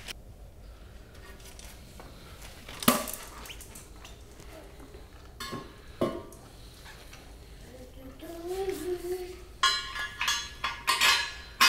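Porcelain toilet tank being set down onto the bowl: a couple of single knocks, then a quick run of sharp, ringing clinks near the end as porcelain and metal mounting hardware knock together.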